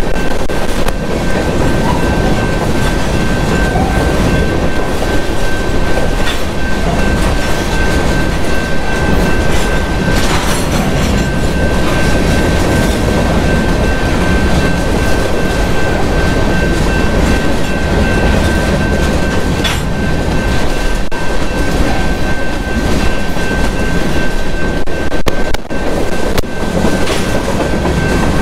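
Freight train of covered hopper cars rolling past, the wheels clacking over the rail joints, with a steady high-pitched whine over the rumble.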